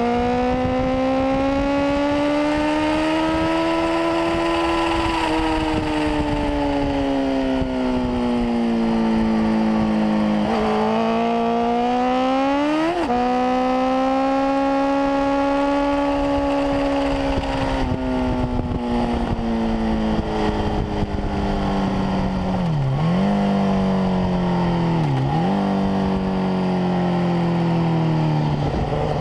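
Honda CBR1000RR's inline-four engine at full track pace, its pitch swelling and easing with the throttle through the corners, climbing sharply about halfway through and dipping sharply twice near the end.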